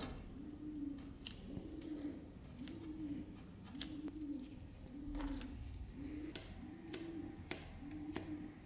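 A pigeon cooing over and over, one low rising-and-falling coo about every second. Scattered light, sharp clicks come from small handwork at the bench.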